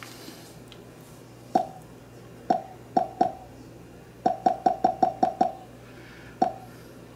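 Conference speakerphone's touch buttons beeping as they are pressed: a dozen or so short, identical mid-pitched beeps, a few spaced apart and then a quick run of about eight in a row, as when stepping the volume up or down.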